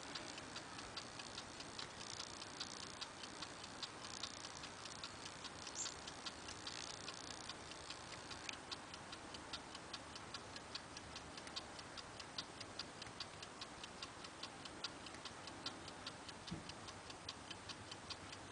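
A clock ticking steadily with quick, evenly spaced ticks. A few faint, brief scratchy scrapes come in the first half, from the picks working inside the lever padlock.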